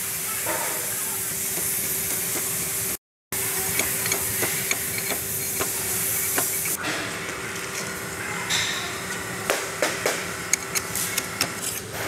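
Dry granular refractory ramming mass being worked around a steel former: scattered clicks and small knocks of granules and tools that grow denser near the end. A steady hiss and low hum sit underneath.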